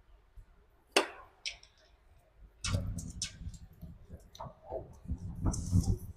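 Hand-work noises while a power cable is prepared for termination: a sharp click about a second in, then clinks and dull knocks of tools and metal parts, with a short hiss near the end.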